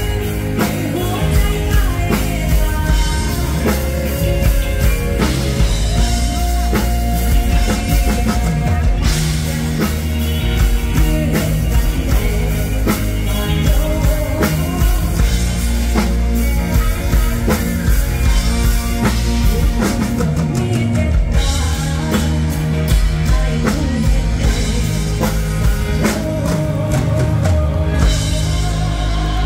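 Live full-band music: a woman singing into a microphone over a drum kit and band, amplified through a stage PA.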